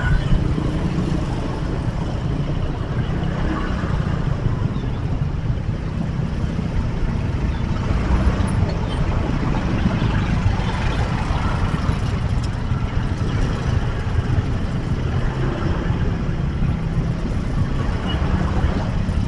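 Street traffic heard from a motor scooter crawling through a jam: a steady low rumble of car and motorbike engines running at low speed, with no single sound standing out.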